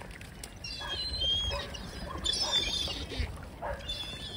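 Birds chirping and calling over and over, short high calls with quick pitch glides, over a low rumble.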